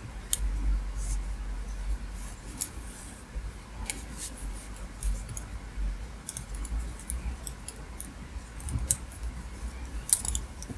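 Double-pointed knitting needles clicking and tapping against each other at irregular intervals as stitches are knit in the round, over a faint low hum.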